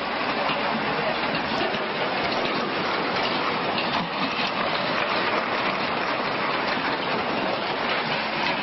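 Tsunami floodwater rushing and churning, a steady, unbroken rushing noise.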